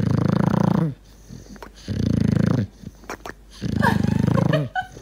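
Dog snoring loudly in deep sleep: three rattling snores about two seconds apart.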